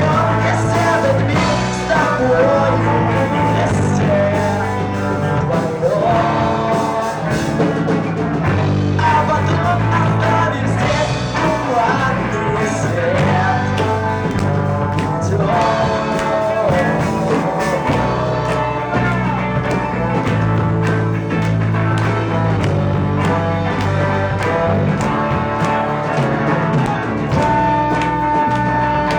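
A rock band playing live, a lead melody bending in pitch over a steady bass part.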